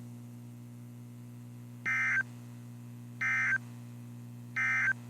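Emergency Alert System end-of-message code on NOAA Weather Radio: three short, identical buzzy digital data bursts about a second and a third apart, marking the end of the warning broadcast. A steady low hum runs beneath them.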